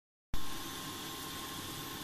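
Steady background hiss with a faint, thin high whine: plain room tone picked up by the recording device. It starts abruptly a moment in, after a brief dead silence.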